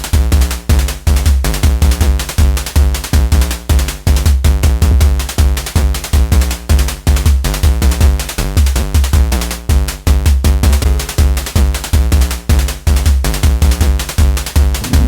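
Electronic background music with a fast, steady drum-machine beat and heavy bass.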